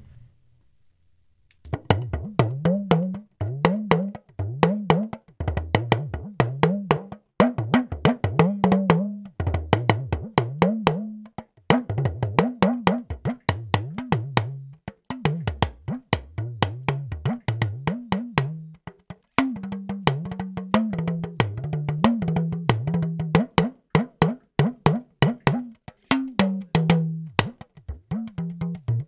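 Recorded talking drum playing quick rhythmic phrases of sharp strikes whose pitch glides up and down, starting about a second and a half in. The recording is from an AKG C3000 condenser microphone, played back through a Waves TG12345 channel strip.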